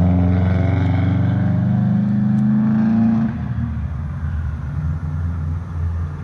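Car engine running, rising steadily in pitch for about three seconds, then dropping suddenly back to a steady, lower idle.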